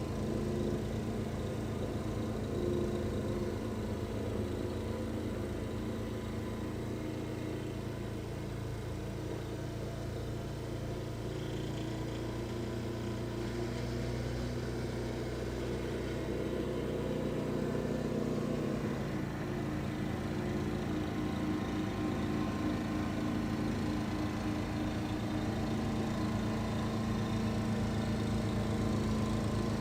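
Snow blower engine running steadily, its pitch shifting down and back up a couple of times.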